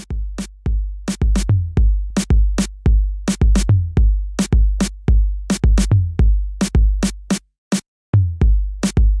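Instrumental intro of a hip-hop dance track: a drum-machine beat of deep, drawn-out bass kicks and sharp percussion hits, about three to four hits a second. It drops out for about half a second near the end, then comes back.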